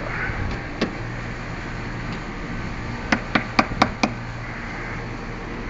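Sharp knocks: one about a second in, then five in quick succession around three to four seconds in, over a steady low hum of running machinery.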